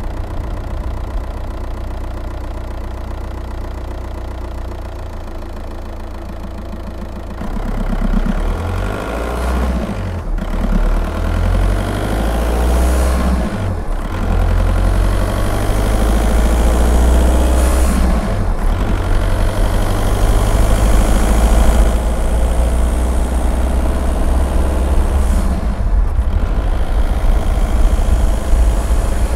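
Škoda Octavia II's 1.9 TDI four-cylinder turbodiesel, heard from outside the car: a steady low diesel rumble at first, then from about seven seconds in it pulls away and accelerates. Its sound breaks briefly at each of several gear changes, and wind noise rises as speed builds.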